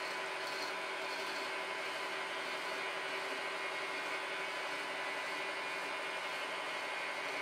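Lathe spindle running at a steady speed with a faint whine, while a hand file is held against the spinning aluminium part to deburr it.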